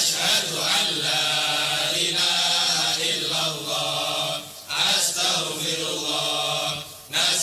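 A voice reciting an Arabic prayer (doa) in long, drawn-out melodic phrases, broadcast over the radio. It breaks off briefly twice, about two-thirds of the way in and near the end.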